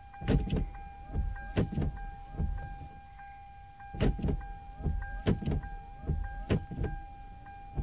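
Hyundai Tiburon windshield wipers running on a newly fitted wiper linkage, with a series of short thunks, some in quick pairs, as the arms sweep and reverse. The linkage now drives the wipers. A steady high electronic tone runs underneath.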